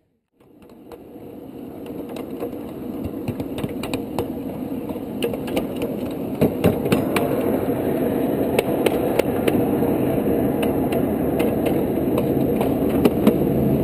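Ride-on miniature train rolling along its track, with a steady rumble of wheels on rail and many sharp clicks and rattles as they cross rail joints. It grows steadily louder.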